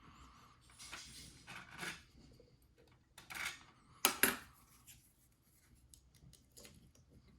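Lock-picking tools in the keyway of an ABUS 72/40 padlock: a Z-bar tension wrench and hook pick make short metallic scrapes, with a sharper, louder pair of clicks about four seconds in and faint ticks after.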